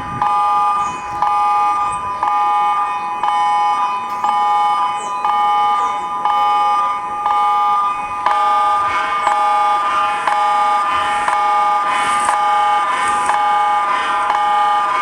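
Electronic emergency alert alarm playing at normal speed: a steady two-tone chord that pulses about twice a second. About eight seconds in, a third, lower tone joins and the sound grows brighter.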